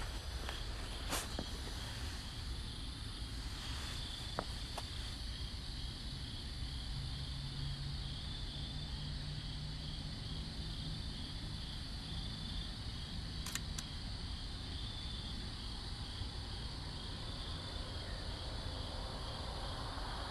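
Crickets chirping steadily in a fast, even pulsing trill. A sharp click comes right at the start, with a few fainter clicks later.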